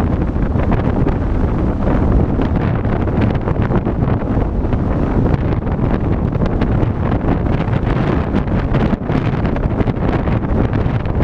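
Wind buffeting a GoPro's microphone on a moving car, mixed with the car's road and tyre noise. The noise is loud, steady and mostly low, with a brief dip about nine seconds in.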